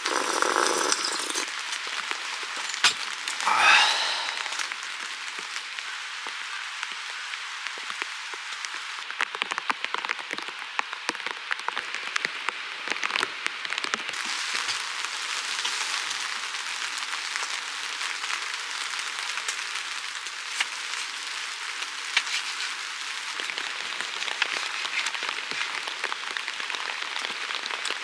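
Rain falling steadily, a dense patter of small drop ticks, as the rain grows heavier. In the first few seconds there are two brief louder sounds, the louder one a short rising swish.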